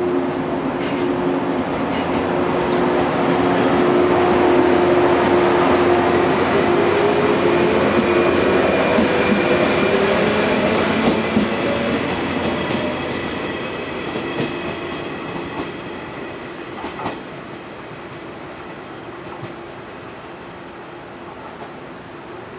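Yellow JR West electric multiple unit passing close by and running away down the line. Its motors hum with a steady whine, and the wheels clack over rail joints. The sound is loudest in the first half and fades as the train goes off into the distance.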